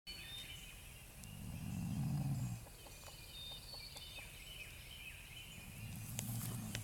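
A person snoring: two long, low snores about four seconds apart, the first one louder.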